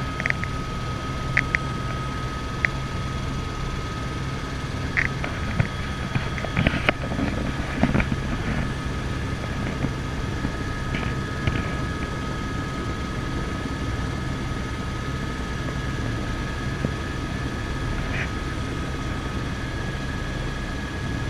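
Helicopter turbine engine and main rotor running on the ground, heard from inside the cockpit as a steady rotor drone. A thin steady whine changes to a slightly higher one about halfway through, and a few light clicks come near the start.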